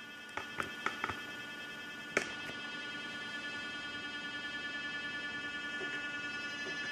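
Steady buzzing electronic tone rich in overtones: the audio signal driving a homemade laser galvanometer built from a hard drive and a toy helicopter. A few sharp clicks come in the first couple of seconds, the loudest about two seconds in.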